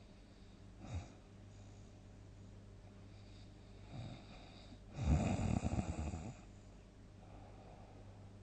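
A sleeping person snoring: faint breaths about a second in and near four seconds, then one loud fluttering snore lasting about a second and a half, about five seconds in.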